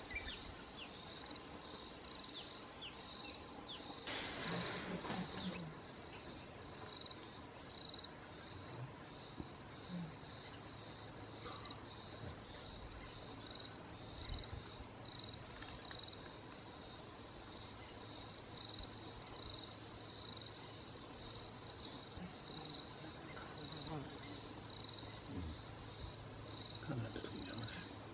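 An insect chirping steadily in a high, even pulse of about two chirps a second. A brief rush of noise comes about four seconds in.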